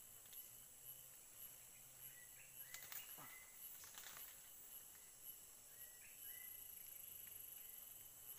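Faint tropical forest ambience: a steady high-pitched insect drone, a few short rising bird chirps, and a couple of faint clicks.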